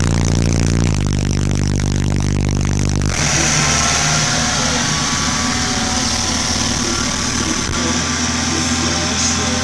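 Sundown ZV4 15-inch subwoofer playing a loud, deep, steady bass tone that drops lower about a second in and cuts off about three seconds in. After that a car engine is left running.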